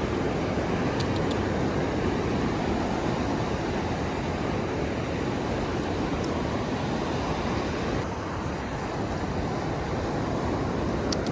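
Steady roar of ocean surf breaking on the beach, with a few faint high ticks, dipping slightly about eight seconds in.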